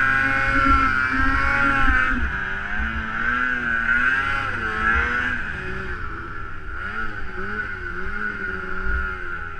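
Snowmobile engine running at high revs through deep powder. Its pitch holds steady, then drops about two seconds in and rises and falls repeatedly as the revs change.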